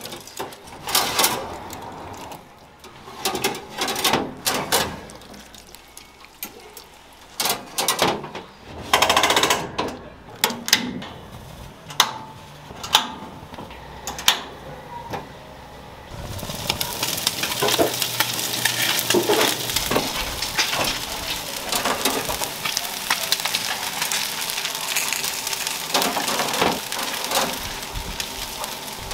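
Metal clinks and knocks of wire grill racks being handled as mackerel are laid in a stainless-steel fish grill. About halfway through, a steady sizzle of the mackerel grilling on the racks takes over.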